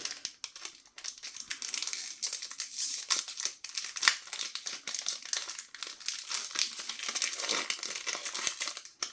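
Crinkling and crackling of trading-card packaging handled by hand, as a Disney Lorcana booster pack is pulled from its plastic blister and its wrapper torn open. A continuous run of small crackles with short pauses about a second in and near the end.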